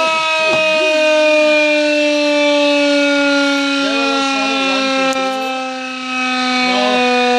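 Battery-powered motor siren, used as a boat fog horn, sounding one long loud held wail whose pitch sinks slowly. It dips briefly in loudness about five seconds in, then comes back up.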